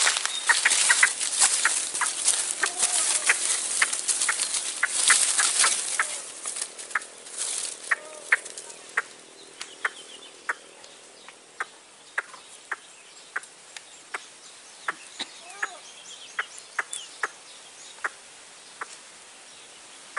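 White-breasted waterhen (ruak-ruak) calling: a loud, harsh croaking chorus for the first several seconds, then a quieter run of single sharp notes, about one or two a second.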